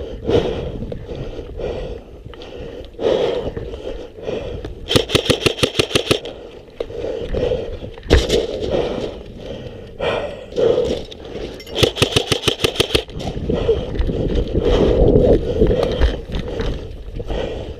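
ICS CXP MARS SBR airsoft electric rifle firing two full-auto bursts of about a second each, about a dozen shots a second, around five seconds in and again around twelve seconds in, with a single sharp crack between them.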